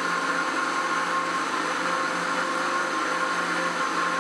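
Electric countertop blender running steadily, its motor and blades churning a thin mix of yogurt and water in the jug.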